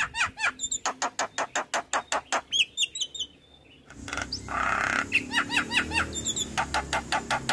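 Javan myna calling in fast runs of short, repeated chattering notes, several a second, with a brief break in the middle before it starts another run.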